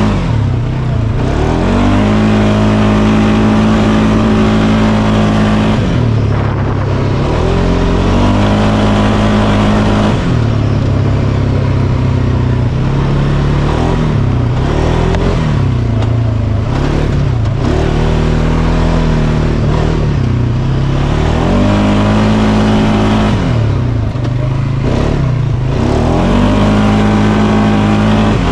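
Polaris Sportsman 570's 567cc single-cylinder four-stroke DOHC engine revving up and down again and again as the throttle is worked, holding a steady pitch between each rise and drop.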